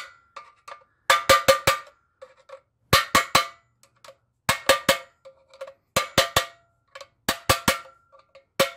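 Hammer driving a flat screwdriver against the lock housing inside a sheet-steel safe door, knocking the lock out of its holder. The blows come in quick groups of three or four, about five groups, and each one rings through the steel body.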